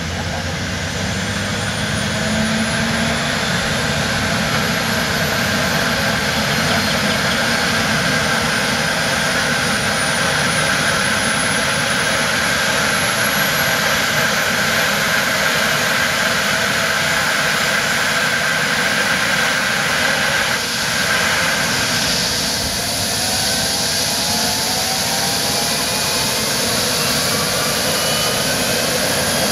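Twin turboshaft engines of a Eurocopter EC135 helicopter starting and spooling up: a loud, steady turbine noise with a whine that slowly rises in pitch, as the main rotor speeds up.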